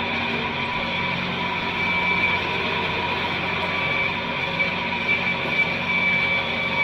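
Large farm tractor's engine running steadily under load while pulling a tillage implement through the field, with a constant drone and a few held whining tones.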